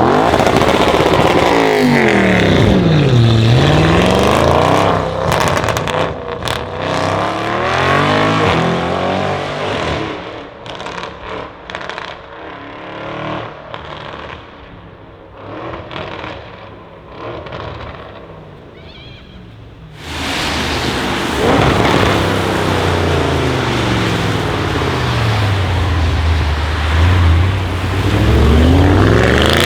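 Twin-turbo V8 of a decatted Audi RS6 C7 with a Milltek exhaust, loud, its pitch falling and rising again as the car accelerates hard, then fading with sharp exhaust crackles and pops. About two-thirds of the way through it comes back loud, and the pitch falls and climbs again.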